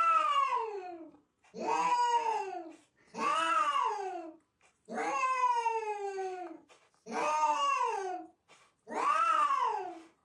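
Domestic cat giving six long, drawn-out meows in a row, each rising and then falling in pitch, with short pauses between.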